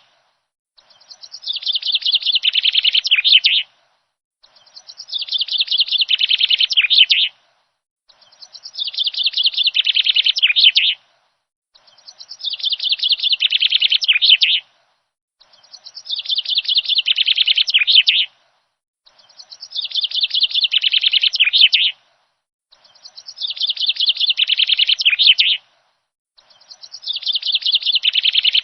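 A bird's rapid chirping trill, each phrase about two and a half seconds long, growing louder and then stopping abruptly. The same phrase repeats about eight times at an even spacing of a little under four seconds, with silence between.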